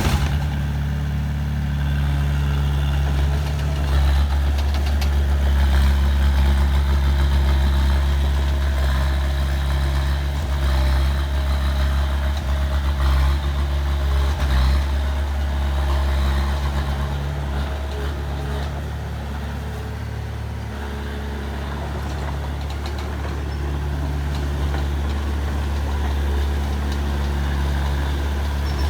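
Heavy diesel engine of earthmoving machinery running steadily with a deep hum, easing down for a few seconds past the middle and then picking up again, with faint clanks over it.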